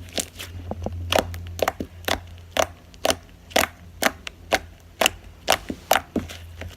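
Slime being squeezed and worked in the hands, making a steady run of sharp clicks, about two a second.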